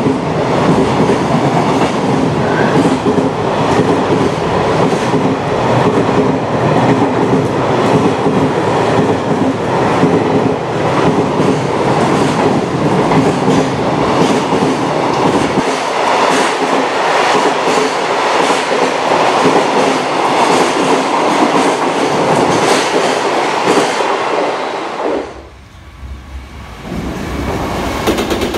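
Container freight train passing at speed close by: a steady loud rush of wagons with the clickety-clack of wheels over rail joints. About 25 seconds in it cuts off abruptly, and after a brief lull another freight train passing starts up.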